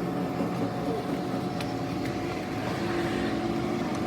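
A motor running steadily, a low hum of several held tones over a noisy rumble.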